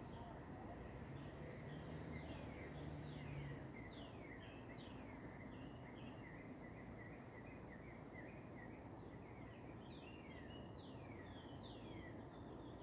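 Faint outdoor birdsong: several small birds giving quick descending chirps, with a short high note repeating about every two and a half seconds, over a steady background hiss.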